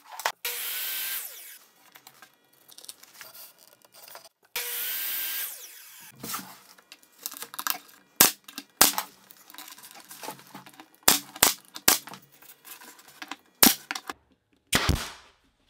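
Pneumatic brad nailer firing 1.5-inch nails through cedar stiles into a planter frame: several sharp shots in the second half. Near the start come two bursts of hissing, each about a second and a half long.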